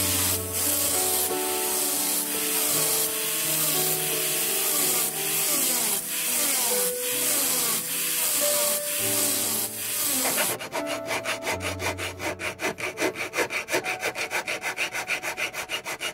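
Flex-shaft rotary tool spinning an abrasive rubber wheel against a sterling silver bracelet, a steady high hiss, with soft piano-like background music. About ten seconds in it changes to a hand file stroking the bracelet's edge, quick regular strokes about four a second.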